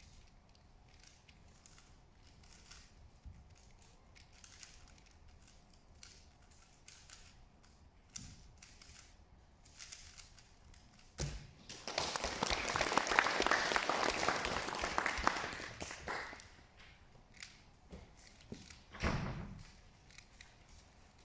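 Faint clicking of a 3x3 speedcube being turned during a solve, then an audience applauding for about four seconds once the solve is finished. A low thump near the end.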